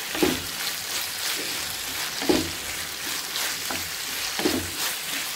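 Chicken strips, cashews and capsicum in sauce sizzling steadily in a pan on high flame while being stir-fried, with a spatula scraping across the pan about once a second.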